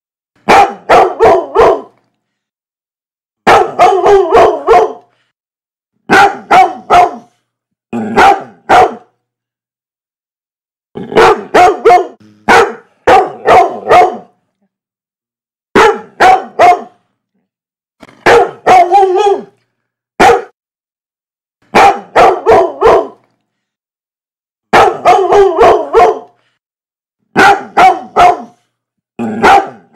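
A dog barking loudly in repeated volleys of two to five quick barks, each volley cut off by a second or two of complete silence.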